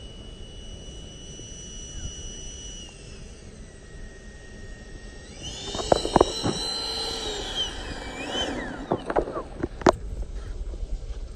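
Electric ducted-fan motor of a radio-controlled F/A-18 jet model whining as it taxis on grass. The steady high whine drops in pitch about three seconds in, rises again around five and a half seconds as the throttle opens, then winds down near eight seconds. A few sharp knocks come around six seconds and near ten seconds.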